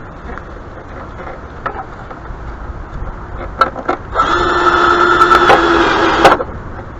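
A few light clicks, then a small motor whirs at one steady pitch for about two seconds and stops abruptly.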